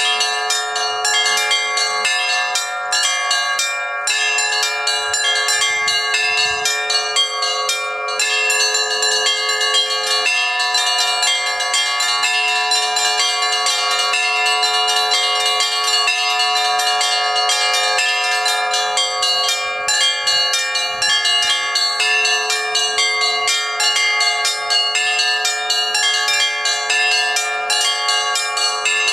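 Russian church bells rung together in a continuous peal. Many bells are struck in quick succession, and their tones ring on and overlap without a break.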